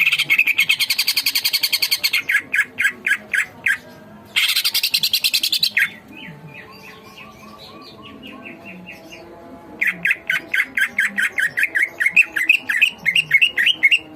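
Collared kingfisher (tengkek buto) calling in loud, rapid, harsh runs of repeated notes in several bursts, one in the middle slowing into separate notes, the bird worked up and agitated. Fainter notes from other birds come through between the bursts.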